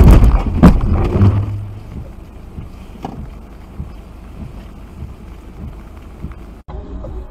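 A sudden loud jolt in a car driving on a wet road: a burst of knocking and rattling, with two more knocks within about a second. It then settles into steady wet-road driving noise.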